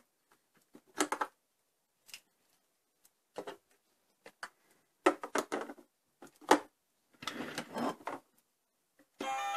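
Hard plastic toy pieces clicking, knocking and rattling as they are handled and set down. Near the end an electronic tune from the toy rocket starts up.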